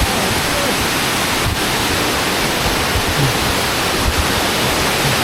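Waterfall tier pouring down, a steady loud rush of falling water.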